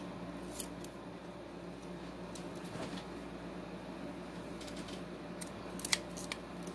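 Metal scissors snipping through tape-covered paper: one sharp snip about half a second in, then a quick run of snips near the end.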